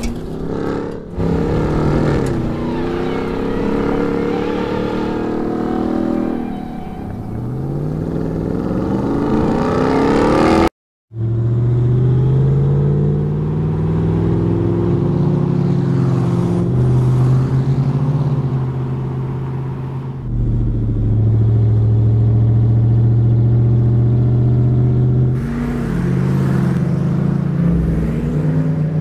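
Ram 1500 TRX pickup's supercharged V8 revving up and down in pitch as the truck is driven hard on dirt. The sound cuts out briefly about eleven seconds in, then a pickup engine runs at a steadier pitch with small rises and falls.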